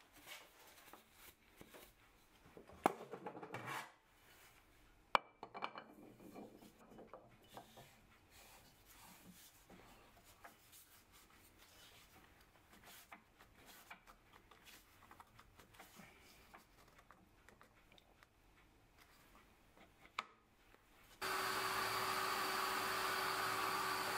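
Rubbing and a few sharp knocks as a plywood disc is handled and fitted to a lathe faceplate. About 21 seconds in, a Myford lathe starts up and runs with a steady whine.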